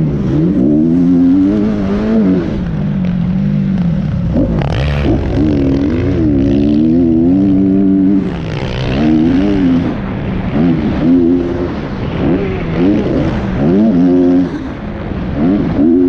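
Dirt bike engine heard from on board the bike, revving up and dropping off over and over as the rider works the throttle through the track, with air rushing over the microphone.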